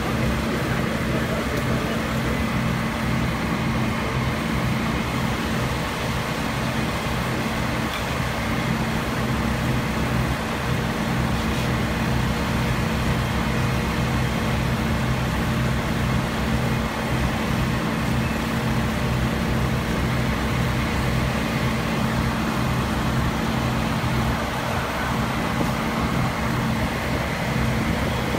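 Fire engine's diesel engine running steadily, driving its pump to feed the charged hose lines. A constant low drone with a few held low tones over a wash of noise, unchanging throughout.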